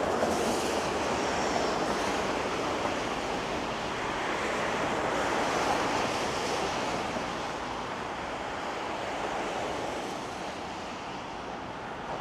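Road traffic passing on a wide city avenue: a steady wash of tyre and engine noise, louder over the first half as vehicles go by, easing off and then building again near the end.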